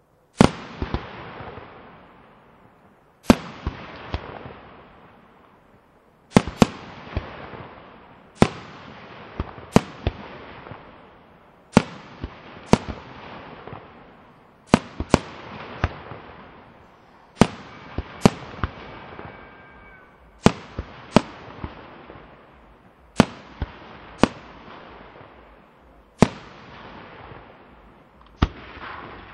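Aerial firework shells bursting one after another, often in pairs, with a sharp bang about every second. Each bang is followed by a fading crackle as the glittering stars burn out.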